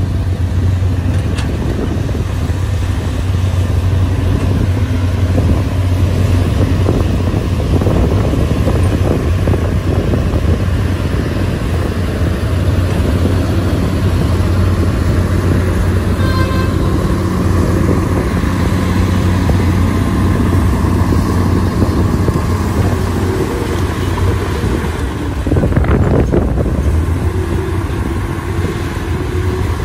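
Diesel engines of excavators, dump trucks and a crawler bulldozer running steadily under load, a constant low drone. A short tone sounds about halfway through, and the engine noise swells near the end as the bulldozer works close by.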